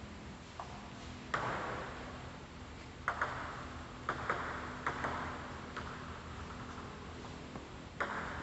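Irregular sharp clicks of a celluloid table tennis ball striking bat, table and floor, some in quick pairs, each echoing in a large hall.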